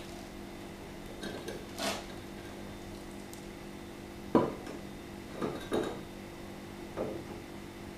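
Heavy cast-iron lid clinking and knocking against its iron box as it is opened, a few separate metallic clanks with the sharpest about four seconds in, over a steady low hum.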